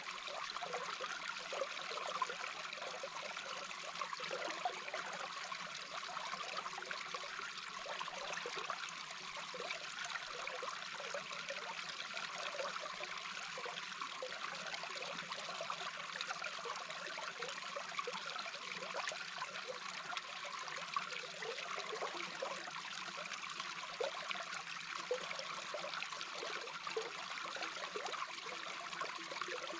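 A small babbling brook heard underwater: a steady rush of flowing water with a constant scatter of small pops.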